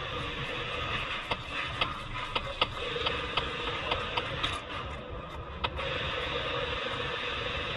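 A series of sharp metallic clicks, about two a second, that stop about two-thirds of the way in, from hand tools and parts being handled at a car's front suspension. Steady background noise runs underneath.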